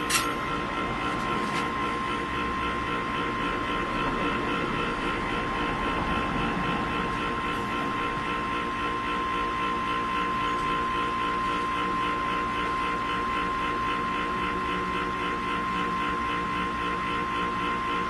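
Small electric motor under a wooden plate turning four magnets to drive a metal spinning top: a steady mechanical whine with a regular pulsing. A sharp click right at the start as the top is set down and released.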